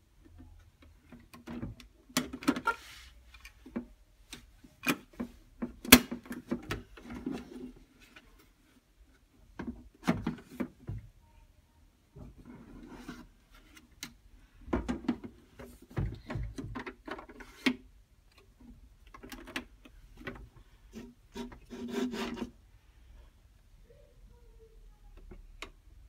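Hard plastic toy washing machine being handled, its ironing-board top gripped and moved: irregular clicks, knocks and scraping of plastic parts, in bursts of a second or two with short pauses between.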